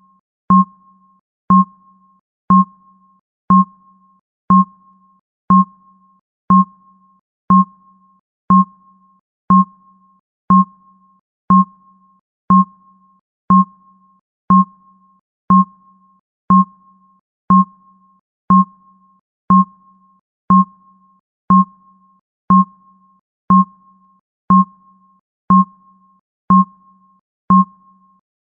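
Countdown timer's ticking sound effect: one short, sharp electronic tick every second, each with a low tone and a higher tone that die away quickly.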